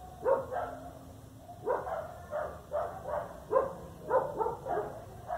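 A dog barking over and over, about two barks a second with short gaps between runs.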